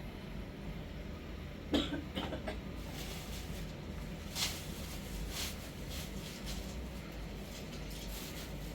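A person coughing in short bursts, the loudest about two seconds in and another brief one midway, over a steady low rumble.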